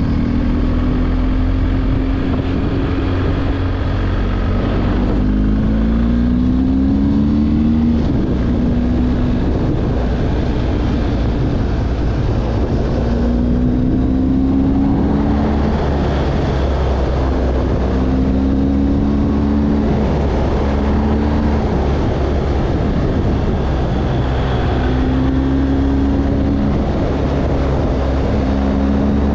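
A vehicle's engine under way, its pitch climbing and dropping back several times, over a steady low hum and wind and road noise.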